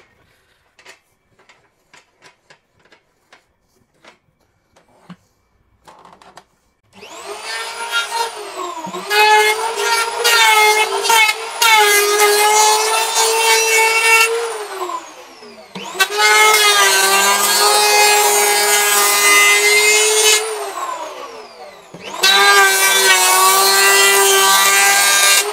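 Total TL7508226 750-watt electric hand planer run three times, each time spinning up with a high whine and shaving along the edge of a wooden board. The first two runs wind down with falling pitch, and the third is still cutting at the end. Before the first start there are a few light handling clicks.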